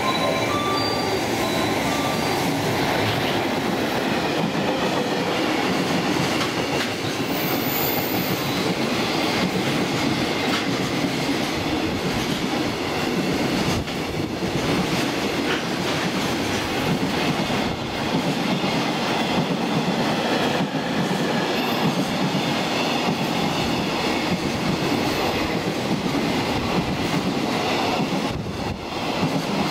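Container freight train hauled by an EF210 electric locomotive running past alongside the platform: a steady rumble of wagon wheels on the rails, with scattered clicks and knocks.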